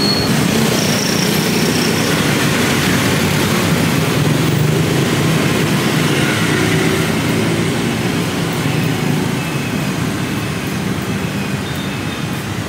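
Steady rumble of passing street traffic, with motor engines swelling slightly and easing off near the end.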